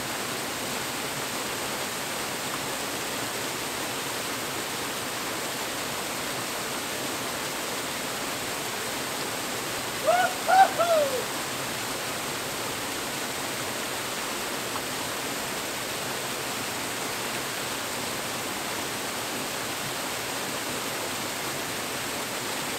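Waterfall pouring steadily into a rock pool. About ten seconds in, a man gives one brief wordless cry as he sinks into the cold water.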